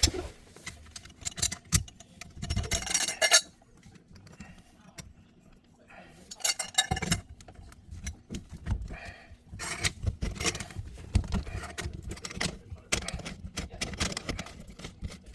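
Tools and metal or plastic plumbing parts being handled under a sink: irregular clinks, knocks and rattles in bursts with short pauses.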